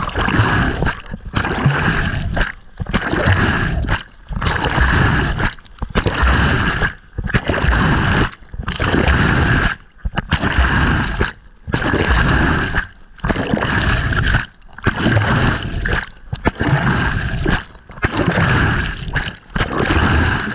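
Creek water rushing and splashing over a waterproof action camera as a man swims, in regular surges about every second and a half with short breaks between, as each stroke plunges the camera under and back out of the water.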